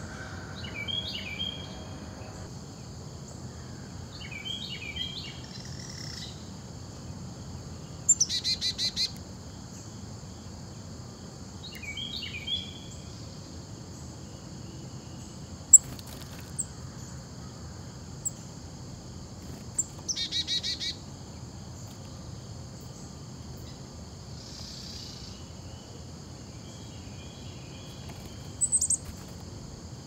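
Songbirds calling: short chirping phrases a few times and two loud, rapid rattling calls, about 8 and 20 seconds in. Under them runs a steady high insect drone, and there is one sharp tick about 16 seconds in.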